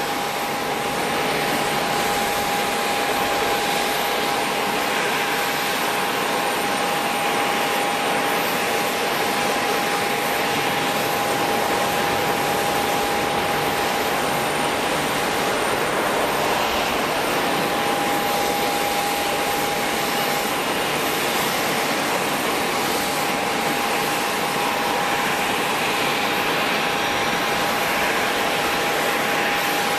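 Jet airliner engines running steadily: an even rushing noise with a single steady whine.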